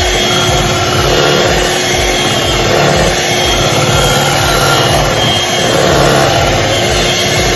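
Electric hand mixer running steadily, its beaters churning through thick cake batter in a glass bowl.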